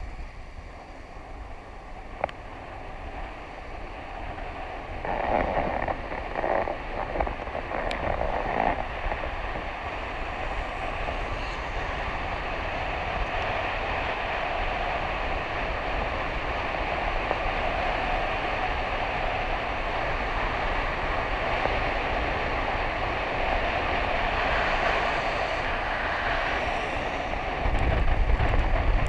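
Rushing wind on the microphone and the hiss of inline downhill skate wheels rolling fast on wet asphalt. It builds over the first few seconds as speed picks up, surges a few times, then holds steady, with a deeper rumble coming in near the end.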